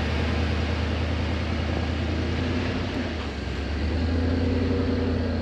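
Motor vehicle engine running with a steady low drone, easing slightly about three seconds in and picking up again a second later.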